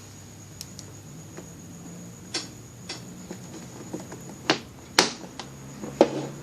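Scattered sharp clicks and taps of test probes and hand tools being handled at a workbench, the loudest about four and a half, five and six seconds in, over a faint steady high-pitched whine.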